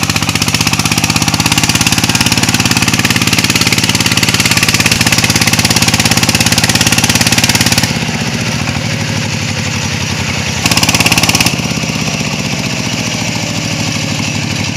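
Single-cylinder diesel engine of a công nông, a two-wheel tractor rigged as a farm truck, running hard with a fast, even chugging as it pulls a load of rice along a slippery muddy track. It is loudest until about eight seconds in, then runs a little quieter, with a short louder spell near eleven seconds.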